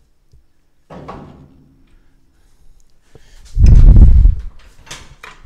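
Heavy low thud and rumble lasting about a second, a little past halfway, with a few sharp clicks after it, as the truck is let down and settles onto its lowering springs.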